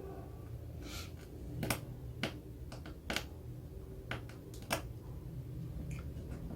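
Light, scattered clicks and ticks, about seven over several seconds, from a small precision screwdriver working a tiny screw into an iPod's metal casing. A steady low hum runs underneath.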